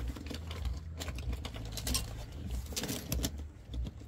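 Irregular small clicks and light rattles of parts and small metal objects being handled against a washing machine pump filter housing, over a low steady hum.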